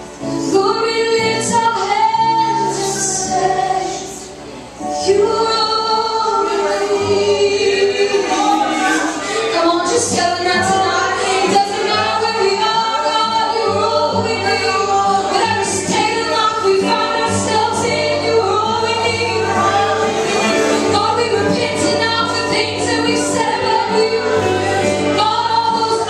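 Christian worship song with a woman's voice leading and other voices singing along over held bass notes. It dips briefly about four seconds in, then comes back in full.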